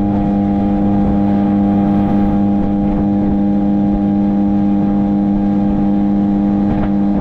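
Yamaha 9.9–15 outboard motor running under way at a steady throttle, a loud, even drone that holds one pitch.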